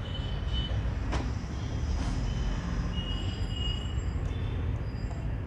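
Small screw being turned into an old sewing machine's needle bar fitting, with short high metallic squeaks and scraping and a couple of light clicks over a steady low hum.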